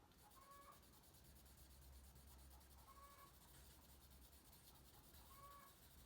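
Faint scratching of charcoal on paper, with a hen calling three times, short pitched calls about two and a half seconds apart: the noisy egg song of a hen laying.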